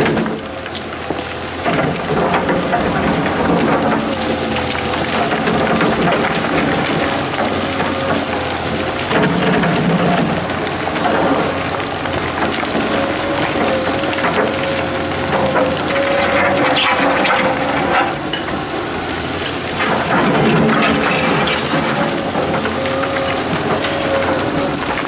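Komatsu PC230-11 hydraulic excavator working: its diesel engine and hydraulics running with a steady whine while the bucket scrapes and rakes soil and stones, which crackle and rattle down the bank. The low rumble swells a few times as the machine works harder.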